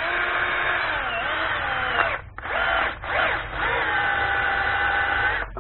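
Bosch GSB 1080-2-Li 10.8 V cordless drill's motor whining in three trigger pulls: a long run, a short blip and another long run. The chuck is gripped by hand and the motor's pitch sags and recovers about a second in.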